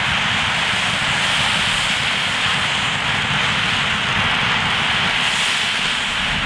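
An 11-inch fountain firework burning, with a loud, steady hissing rush as it sprays sparks.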